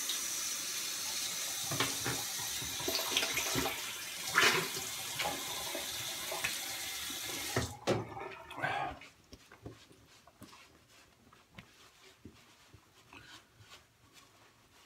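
Bathroom tap running into the sink while water is splashed on the face to rinse off after a shave, with a few louder splashes; the water stops abruptly about eight seconds in, leaving faint dabbing of a towel on the face.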